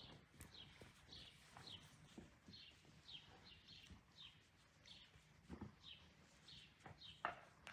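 A bird chirping over and over, short falling notes about two a second, faint. Two soft thumps cut in, the louder one near the end.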